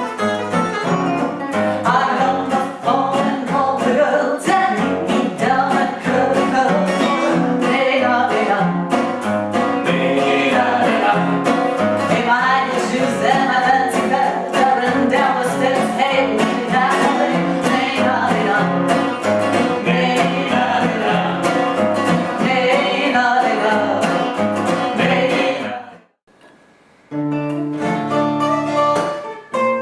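Lively music made of rapidly picked notes over a steady accompaniment. It breaks off for about a second near the end, then starts again.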